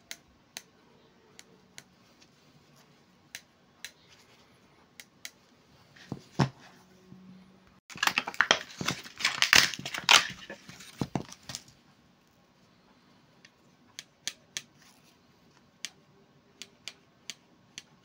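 Stanley DynaGrip pliers clicking as their steel jaws are opened and closed, a click every second or so. In the middle comes a few seconds of crinkling clear plastic wrapping, the loudest part, and then the spaced clicks of the pliers return.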